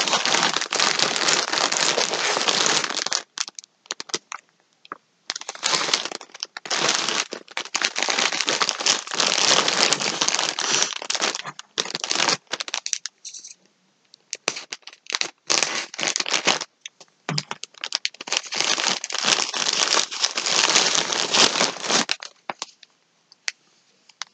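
Clear plastic wrapping around a pack of yarn skeins crinkling and crackling as it is handled and opened, in long loud stretches broken by short pauses; it stops about two seconds before the end.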